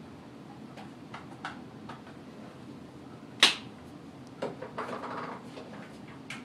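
A single sharp knock about halfway through, with faint clicks before it and a short rustle and clatter a second after.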